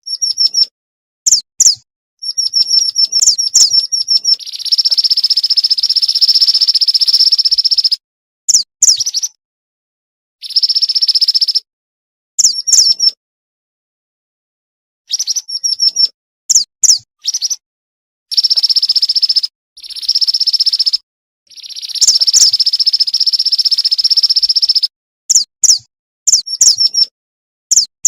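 Female mountain mantenan bird calling: bouts of rapid high chips and long buzzing trills, each lasting a few seconds and cut off abruptly by dead silence. This is a lure call used to draw in males.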